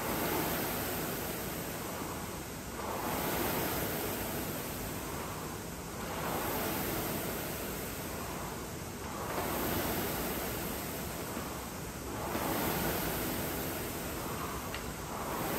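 Concept2 rowing machine's air-fan flywheel whooshing, surging with each drive stroke and fading on the recovery, about once every three seconds.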